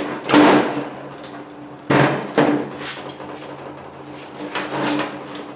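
Several separate metal knocks and clanks, about four or five strikes spread across a few seconds, as the steel case of a 2 hp electric motor is struck and pried apart along its cut seam.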